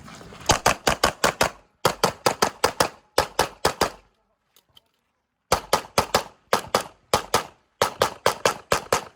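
Rapid strings of pistol shots from a CZ Shadow 2 on a USPSA course of fire, about five or six shots a second in groups of five to eight, with a pause of about a second and a half near the middle.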